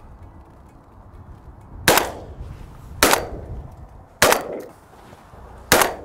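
Four shotgun shots, roughly a second apart, each a sharp crack followed by a short fading echo.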